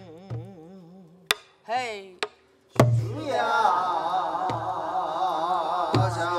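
Namdo folk song sung in the Korean style with wide, wavering vibrato, accompanied by a buk barrel drum: a faint held note with a low drum stroke, sharp clicks of the stick, a short sung phrase, a brief pause, then a drum stroke and voices coming in together on a long wavering line, with further drum strokes about every second and a half.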